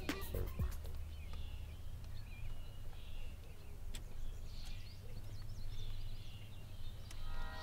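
Outdoor ambience: birds chirping now and then over a steady low rumble, with a single click about four seconds in. Music comes in near the end.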